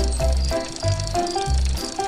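Background music with a steady bass beat and a simple melody.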